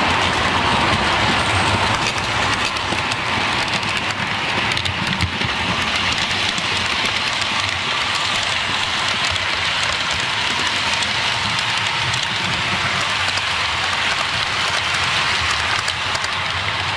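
Model railway trains running on the layout: a steady rolling rumble and hiss of model train wheels on the track.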